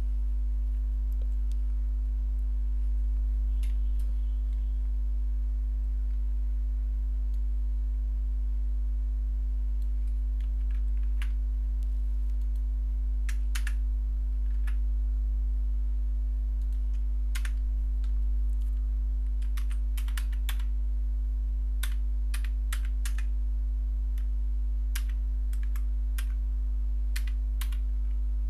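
Computer keyboard typing: a few separate key clicks at first, then quick runs of keystrokes from about ten seconds in, over a steady low electrical hum.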